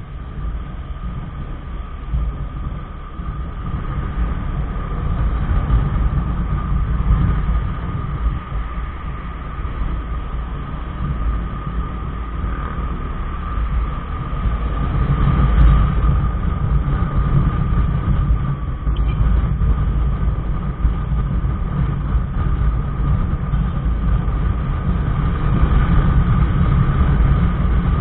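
Motorcycle riding noise picked up by a handlebar-mounted action camera: a constant deep rumble of wind buffeting and road noise, with the engine's drone and a steady whine running through it. It grows a little louder as the bike speeds up.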